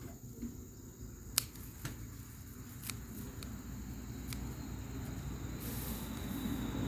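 A few sharp clicks as gloved hands handle and trim lemongrass stalks, the loudest about one and a half seconds in. Under them, the low rumble of an approaching road vehicle grows steadily louder toward the end.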